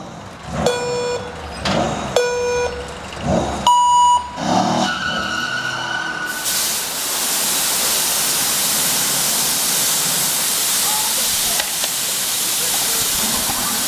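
Race-style start-light countdown beeps: two low beeps, then a higher beep about four seconds in as the light turns green. About six seconds in, a loud, steady hiss of smoke jets starts and carries on.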